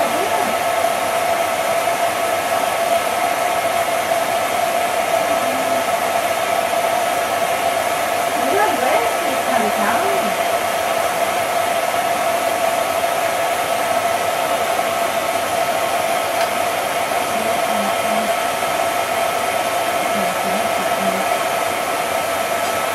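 Cine film projector running: a steady whirring hum with a constant mid-pitched tone.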